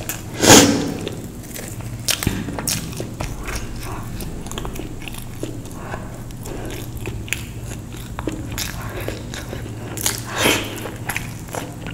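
A person eating crisp food: a loud bite about half a second in and another near the end, with chewing and small crunches between.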